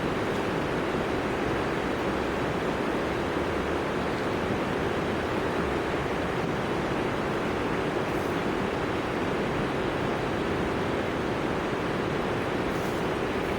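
Steady rushing of river water, running high.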